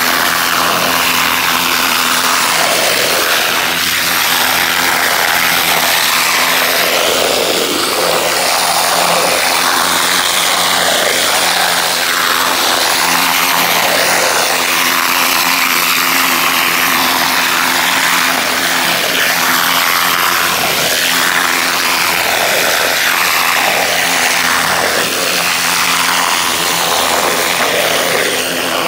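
Pressure washer running steadily, a constant mechanical hum under the hiss of its high-pressure water jet blasting into wet soil and grass.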